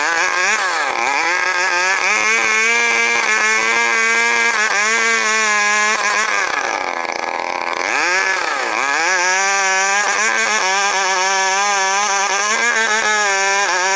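Stihl 070 two-stroke chainsaw running at high revs while ripping a log lengthwise. Its pitch drops and climbs back twice: briefly about a second in, and more deeply around seven seconds in.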